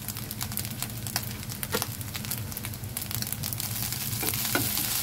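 Fried rice sizzling steadily in a wok, with a spatula stirring and scraping it, giving scattered sharp clicks that grow a little stronger near the end.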